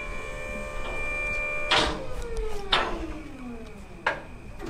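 Electric-hydraulic liftgate pump motor whining steadily, then cutting off with a clunk a little under two seconds in. Its whine slides down in pitch as it spins down, and two more metallic clunks follow from the liftgate.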